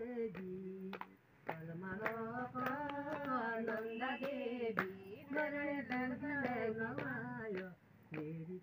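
Women singing a Pahari folk song unaccompanied, keeping time with hand claps about twice a second.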